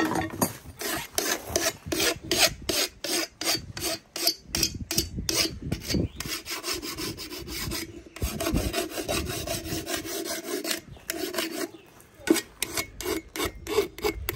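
Rapid repeated scraping strokes, about two to three a second, with a steadier stretch of continuous rubbing in the middle.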